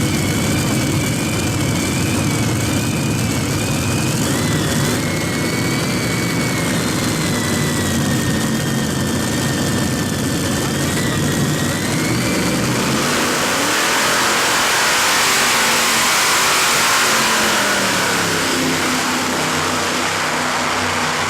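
Heavy modified pulling tractor with three Allison V12 aircraft engines running hard under load, a dense deep engine note with a high whine over it. About thirteen seconds in, the deep note falls away and sinking tones follow as the engines come off power.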